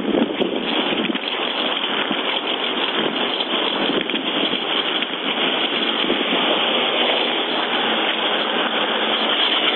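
Steady rushing vehicle noise: an even hiss with no distinct engine note or other events.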